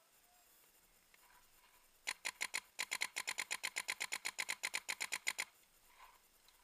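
Invert Mini paintball marker firing rapidly, about nine shots a second, starting about two seconds in with a short break after the first few shots and stopping abruptly about three seconds later.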